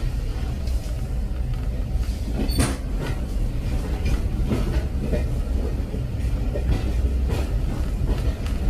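Train running on rails: a steady low rumble with irregular clacks and knocks of the wheels and carriage. The loudest, sharpest clack comes about two and a half seconds in.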